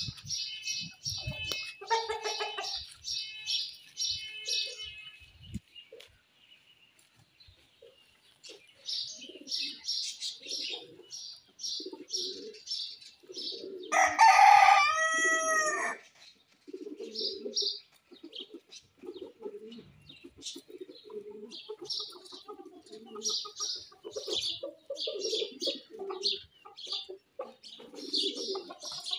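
A rooster crows once, loudly, about halfway through, one call of about two seconds. Around it small birds chirp rapidly and constantly, with short low clucking calls repeating.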